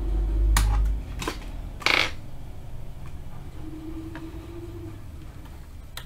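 Hands handling the parts of an opened laptop and things on the desk: a few sharp clicks and knocks, with a short scraping rattle about two seconds in, and a faint hum in the second half.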